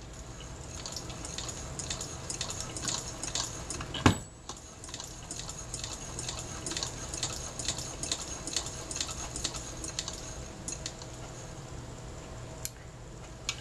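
1940 Elna Junior toy sewing machine being hand-cranked, its needle mechanism clicking about three times a second as it stitches. A sharper, louder knock comes about four seconds in, and the clicking stops about ten seconds in.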